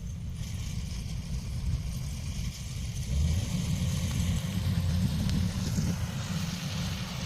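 Heavy machinery engine running with a low, uneven rumble and a hiss above it, growing louder about three seconds in.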